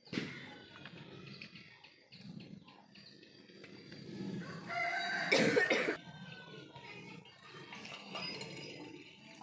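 A rooster crowing once, a loud call just over a second long about five seconds in.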